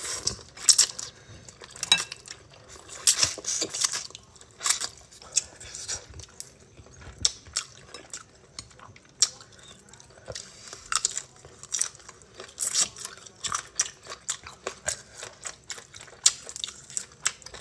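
Close-miked eating: noodles slurped and chewed with wet mouth smacks and clicks in short, irregular bursts, along with chewing of shell-on shrimp.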